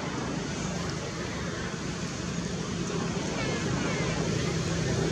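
Steady rushing outdoor background noise with no clear events, growing slightly louder near the end.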